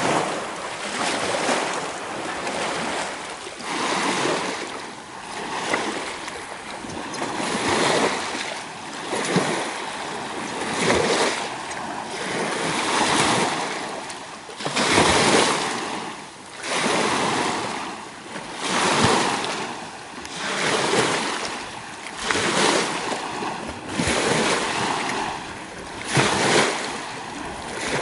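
Small lake waves washing against a rocky shore, surging and receding about every one and a half to two seconds.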